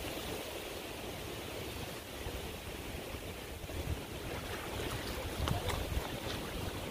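Wind buffeting the microphone over small choppy waves lapping against a rocky lake shore, with a few faint ticks.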